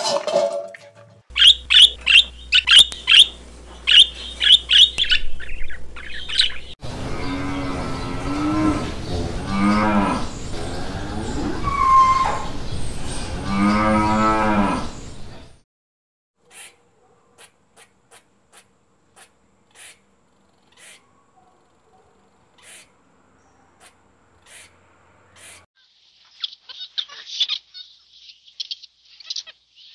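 A dog's metal food bowl clinking briefly, then a quick run of high chirps. Then cows mooing, several long low calls over about nine seconds, which are the loudest sound here. After that come faint scattered ticks, and high chirping starts again near the end.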